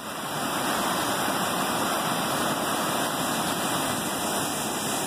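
Steady rush of turbulent white water pouring through a concrete fish pass, fading up over the first half second.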